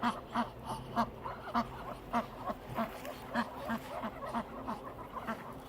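Ducks quacking in a steady run of short calls, about three a second.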